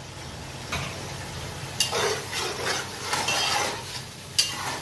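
A slotted metal spatula stirring chicken pieces through frying masala in a metal pot: scraping and sharp clinks against the pot three times, over a sizzle.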